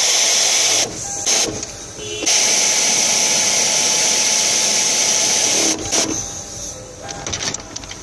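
Compressed-air tool on an air hose, hissing as it runs in two long bursts: one that stops just under a second in and a longer one of about three and a half seconds, with short blips and light clicks between and after.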